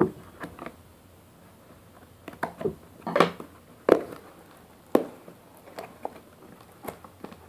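Cardboard shipping box being opened by hand: a sharp snip of scissors through packing tape right at the start, then a series of scrapes and knocks as the cardboard flaps are pulled open, loudest between about three and five seconds in.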